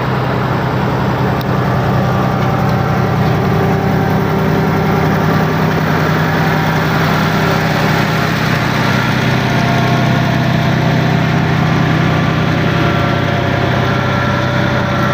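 Large engine of road-construction machinery running steadily at close range, a deep even hum. It cuts off abruptly at the very end.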